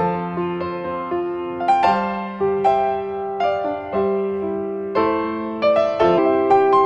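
Background piano music: single notes and chords struck one after another, each ringing out as it fades.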